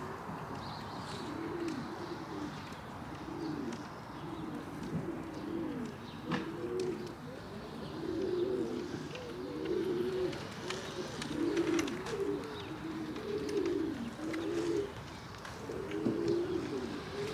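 Domestic pigeons cooing, one short low phrase after another in quick succession, several birds overlapping.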